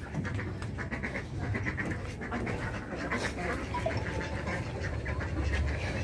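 Ducks quacking in short, rapid runs of calls, over a steady low rumble.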